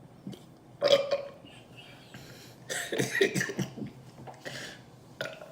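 A woman burping from gulped Coca-Cola: a short, loud burp about a second in, then a longer, broken-up burp about three seconds in.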